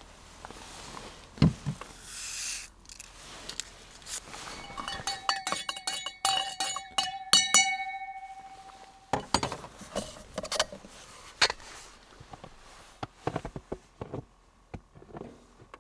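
Rapid clinking on a ringing cup for about three seconds near the middle, with a dull knock early on and scattered handling knocks afterwards.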